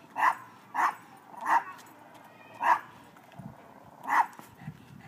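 A dog barking: five short, sharp barks at uneven intervals.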